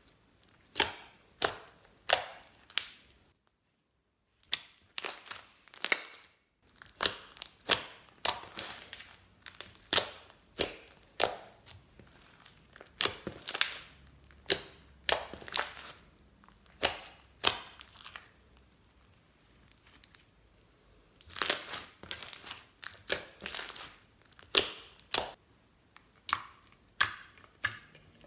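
Hands kneading and pressing glittery slime, air pockets inside it popping with sharp wet clicks, about one or two a second. There is a brief pause about four seconds in and a quieter stretch past the middle.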